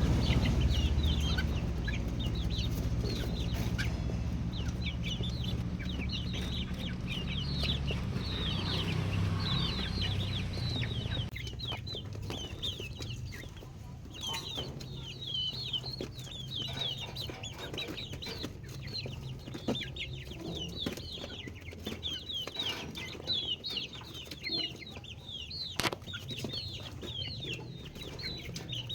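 Chicks peeping continuously, many short high cheeps overlapping one another. A low rumble sits under the first ten seconds or so.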